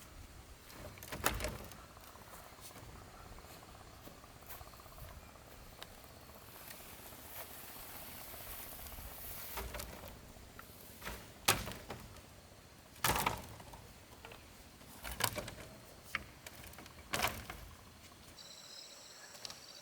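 Scattered single knocks and clanks, about five spread through the stretch, over a steady hiss. Crickets start chirping near the end.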